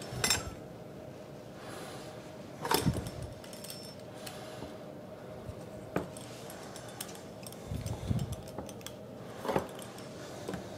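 A small metal blade scraping and clicking against the rim of a metal pizza pan as it trims the excess dough from the edge: a handful of short scrapes and clicks spread out, with quieter rustling of dough between them.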